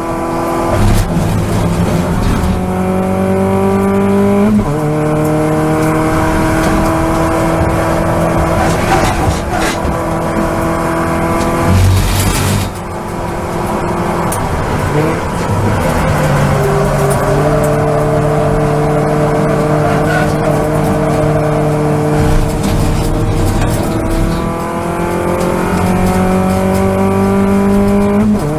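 Toyota Vios race car's four-cylinder engine heard from inside the cabin, rising in pitch under full throttle with an upshift about four and a half seconds in. Around the middle it lifts off and drops in pitch for a corner, then pulls steadily higher again through the last part.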